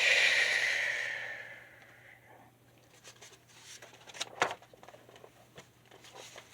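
A woman's voice imitating a bear's snore: a long breathy exhale that starts loud and fades away over about two seconds. A couple of faint clicks follow about four seconds in.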